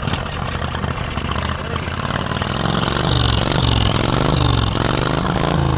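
Engine of a 1960s lawnmower fitted with a home-built turbocharger, running and being revved up and down repeatedly, growing a little louder toward the end.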